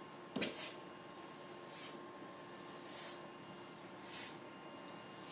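Short hissing 'shh' sound effects, one for each stroke of a capital W being written: five brief hisses about a second apart.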